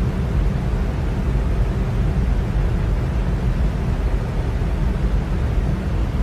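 Electric fan running steadily: a constant airy whoosh with a deep low rumble.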